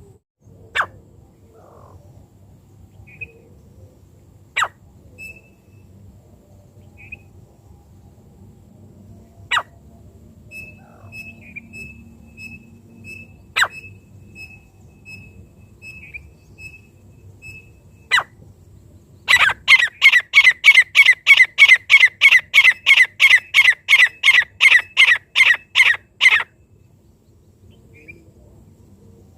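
Francolin (teetar) calling: a loud run of about 25 quick, evenly spaced notes, a little over three a second, that stops suddenly after about seven seconds. Before it come a few sharp clicks several seconds apart and faint short chirps.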